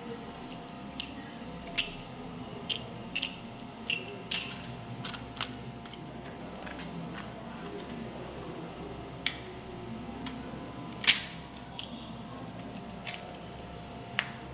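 Scattered sharp clicks and crinkles of chocolate packaging being handled and opened, some a second or more apart and a few in quick pairs, the loudest about eleven seconds in, over a steady faint hum.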